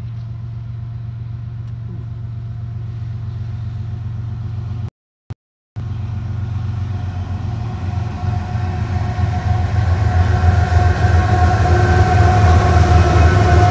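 Two diesel freight locomotives approaching and passing, a low steady engine drone growing louder, with a steady whine rising above it as they draw level. The sound cuts out for under a second about five seconds in.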